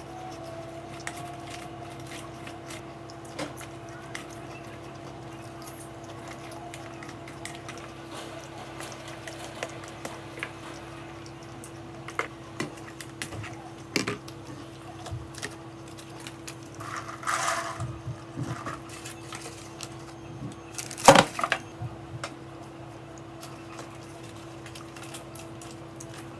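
Scattered light clicks and knocks of small objects being handled over a steady low electrical hum, with a busier patch of clatter about two-thirds of the way in and one sharp, loud knock shortly after.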